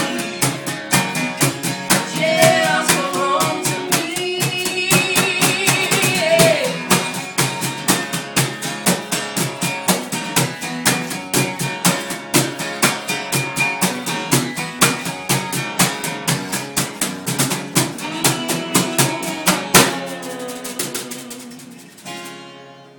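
Live acoustic rock: a sung vocal line over strummed acoustic guitar for the first several seconds, then the guitar strumming on in a steady rhythm. About twenty seconds in, a final hard-struck chord rings out and fades as the song ends. It is picked up on an old phone's microphone, thin in the bass.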